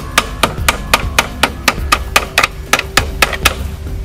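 Hammer striking metal at the rear wheel of a Yamaha R1 motorcycle, about four quick ringing blows a second, stopping near the end.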